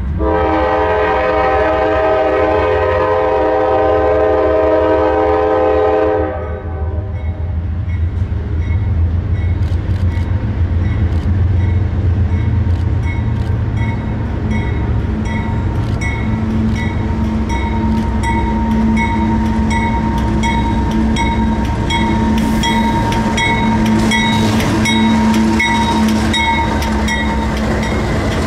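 Diesel freight locomotive's air horn sounding one long blast of about six seconds as the train approaches. Then the lead locomotives run past close by with a heavy engine rumble, a steady whine and wheels clicking over the rail joints.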